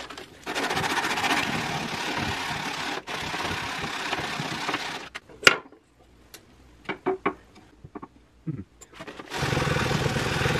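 A small wooden shim being hand-sanded on a sheet of P150 sandpaper to match a taper. Fast continuous rubbing runs for about four seconds with a brief pause, then come a few light taps and a knock as the shim is set in place and checked. The rubbing starts again near the end.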